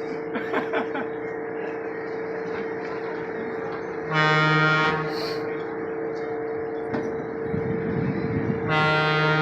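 Train horn sounding two blasts of about a second each, one about four seconds in and one near the end, over a steady running hum.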